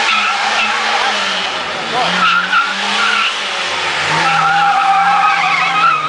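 Žiguli (VAZ/Lada) saloon's engine revving up and down as it is thrown through a cone slalom, with the tyres squealing through the turns. The squeal is strongest about two seconds in and again over the last two seconds.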